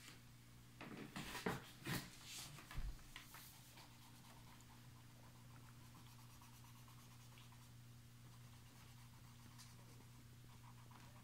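Near silence: room tone with a faint steady low hum. In the first three seconds come a few soft rustles and taps from the phone being handled as it is moved.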